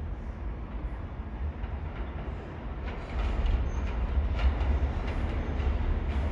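New York City subway train rumbling through the station, getting louder about three seconds in as it approaches, with faint clicks of its wheels over the rail joints.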